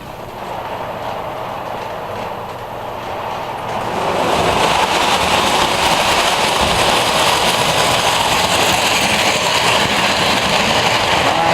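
O scale model train pulled by three steam locomotives in a triple-header running along the track, a steady rushing, rumbling sound that grows louder about four seconds in and then holds.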